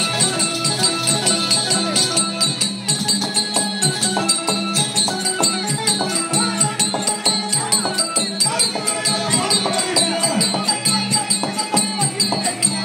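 Tamil therukoothu folk-theatre music: a stepping melody over steady drumming, with a fast, continuous metallic jingle.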